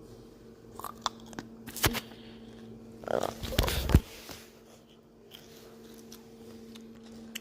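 Tortilla-chip nachos being bitten and crunched: a few crisp crunches, the loudest cluster about three seconds in, over a steady low hum.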